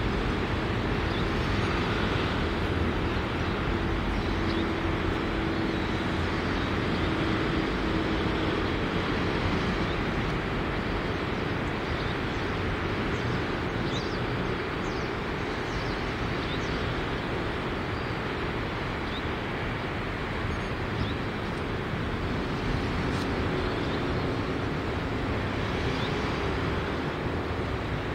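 Steady outdoor background noise, a low rumble with a hiss over it, with a faint steady hum for a few seconds near the start and a few short, faint high chirps later on.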